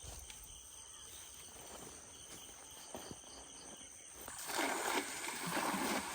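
Insects, crickets among them, chirping in a steady high hum, with a louder burst of noise about four seconds in.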